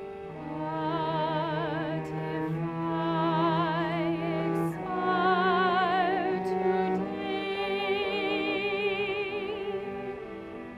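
Operatic excerpt: a high voice sings long, held notes with wide vibrato over sustained bowed strings, cello among them, in several phrases that each swell and hold.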